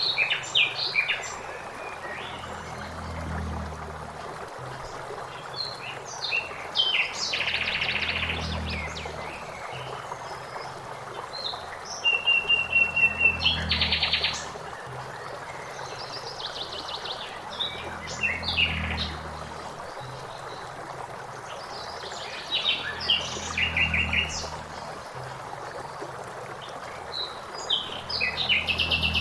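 Blackbird singing in short phrases of chirps and trills every few seconds over the steady rush of flowing water, with a low rumble swelling and fading about every five seconds.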